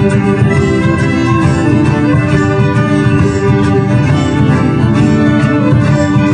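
Folk band playing a morris tune live, led by squeezeboxes holding reedy, organ-like chords over a steady rhythm.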